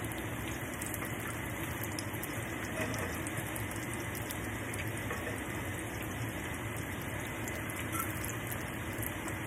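Hot oil bubbling and crackling steadily around battered hushpuppies deep-frying in a cast-iron pot, with scattered small pops.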